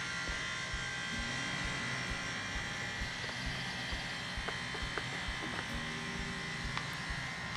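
Faint steady mechanical hum with a few faint clicks.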